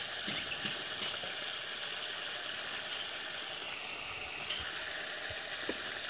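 Water spraying from a garden hose in a steady hiss, wetting freshly laid brickwork to cure it, with a few faint knocks.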